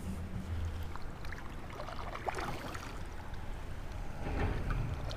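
Kayak paddle strokes in calm lake water: the blades dip and splash about twice, over a low steady rumble.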